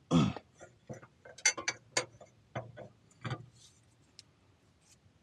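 Metal clicks and clanks of a 1/2-inch ratchet and socket being worked onto an oil pan drain plug, in irregular clusters, the loudest right at the start.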